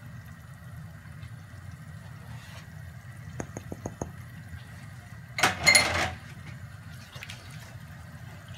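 Silicone spatula stirring lemon juice and cornstarch in a nonstick pan, the liquid sloshing over a low steady hum, with a few quick light taps near the middle and a brief louder swish about five and a half seconds in. The starch is being stirred in to thicken the sauce without lumps.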